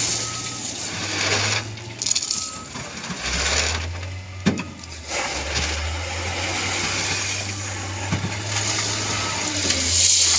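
Large wheel loader's diesel engine running with a steady low drone as its bucket pushes into a pile of loose gravel, with rattling of the material and one sharp knock about four and a half seconds in.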